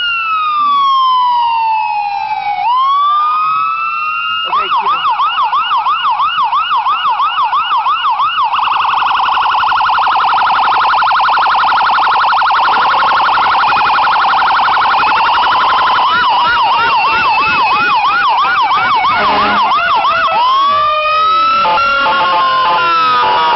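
Emergency truck's electronic siren sounding loudly and cycling through its tones. It starts with a slow falling wail, switches to a yelp at about three rises a second, then to a much faster warble, goes back to the yelp, and near the end returns to slow rising and falling wail sweeps.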